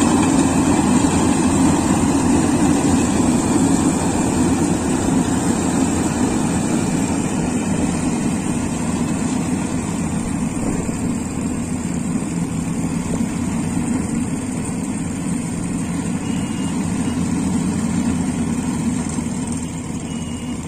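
Iseki combine harvester running steadily as it cuts and threshes rice, its diesel engine and machinery making one continuous sound that slowly gets quieter as the machine moves away.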